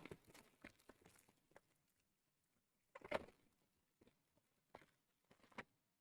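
Near silence broken by a few faint taps and rustles of card packs and packaging being handled: a short cluster at the start, then single soft knocks about three seconds in and twice near the end.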